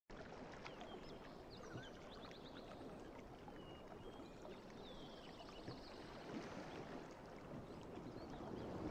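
Faint steady rushing noise like flowing water or surf, with scattered high chirps and short whistles over it, including a quick trill of about five notes around two seconds in.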